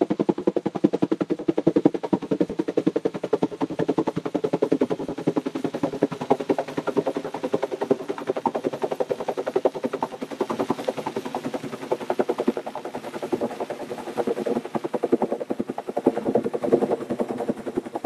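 Helicopter rotor running overhead, its blades beating in a rapid, steady pulse.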